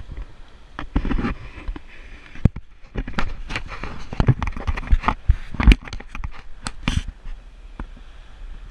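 Irregular sharp knocks, clatter and rubbing on a GoPro's housing as the camera is handled and swung up from beside the hull, thickest in the middle and thinning out near the end, over a low rumble of wind and water.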